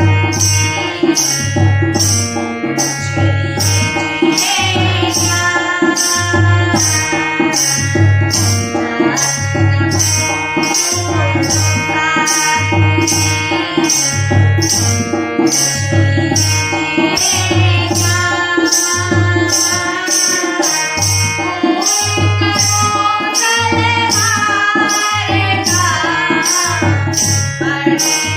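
Indian devotional music: a tabla and drum rhythm with a steady pulse of low strokes and regular high jingling strokes under a sustained melodic accompaniment.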